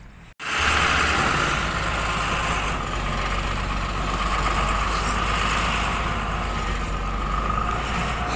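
A vehicle engine running steadily, with a constant low hum and a steady higher whine. It starts suddenly about half a second in.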